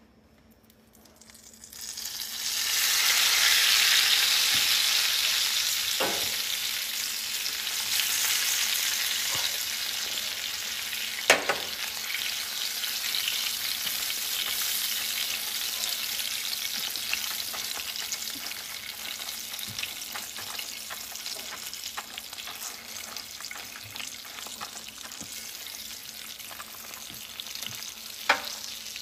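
A foil-wrapped packet frying in hot oil in a pan: the sizzle starts about two seconds in, is loudest a couple of seconds later, then slowly dies down. A few sharp knocks of a utensil against the pan, the loudest near the middle.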